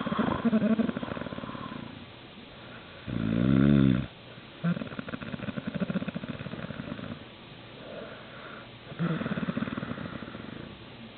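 A man snoring loudly: a rasping, rattling snore every few seconds, with one louder drawn-out breath of wavering pitch about three seconds in.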